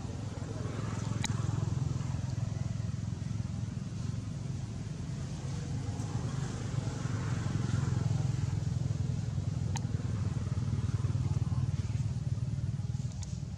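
Low, steady rumble of motor traffic going past, swelling about a second in and again around six to eight seconds in, with two sharp clicks.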